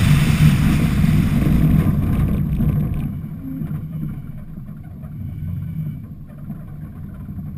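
Off-road Toyota Tacoma driving fast on a dirt road, heard from its hood: wind rush and road noise that fall away about two to three seconds in as the truck slows, leaving a low engine rumble.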